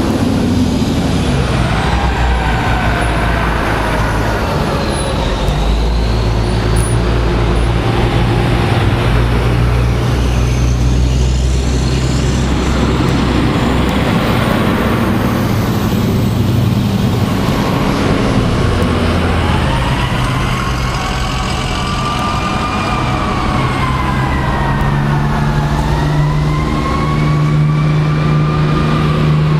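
Fire engines passing slowly, their diesel engines running steadily, while sirens wail in slow rising and falling glides, strongest in the second half.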